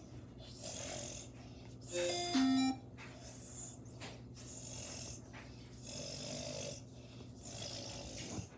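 Slow, noisy breaths, about one every second and a half, over a steady low hum. About two seconds in, a short electronic tone steps up through a few notes and then drops; it is the loudest sound.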